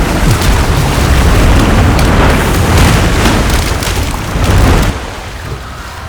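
Recreated film sound effects for a sinking ship: a loud, dense crashing rumble with scattered crackles, dropping off sharply about five seconds in.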